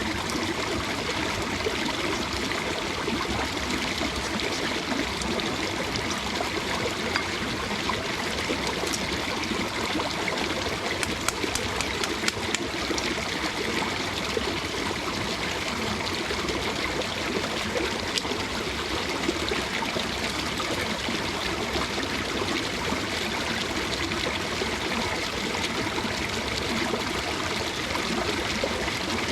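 Running water of a mountain stream, a steady even rush, with a few light clicks about the middle.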